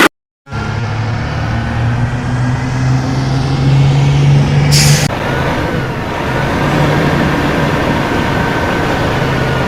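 Heavy road vehicle's engine running steadily with a low hum, with one short high hiss about five seconds in.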